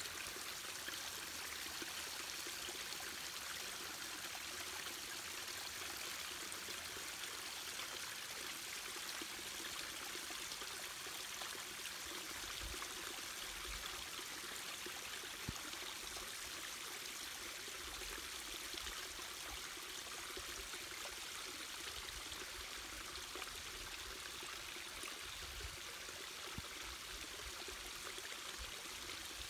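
Steady hiss of water trickling and pouring off sandstone rock ledges, with one faint click about halfway through.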